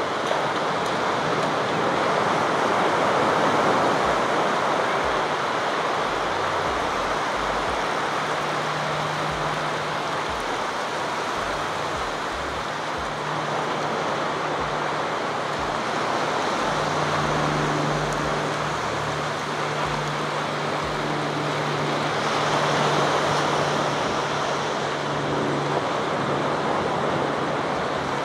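Ocean surf breaking and washing up a shallow beach: a steady rushing wash that swells and eases with the waves, with irregular low thumps underneath.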